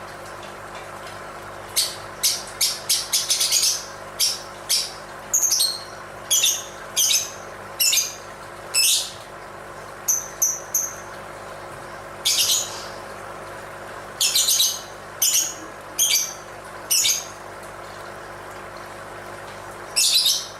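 Lovebird giving a long series of short, high-pitched chirping calls, some in quick runs and others spaced out with pauses, over a steady faint hum.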